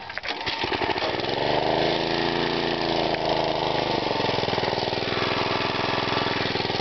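Small gasoline engine catching after a pull start, rising in pitch as it is revved up, then dropping back and running steadily.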